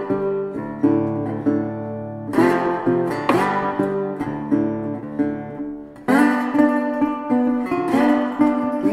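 Background music: acoustic guitar plucking a melody, with strummed chords coming in sharply about two and a half seconds in and again about six seconds in.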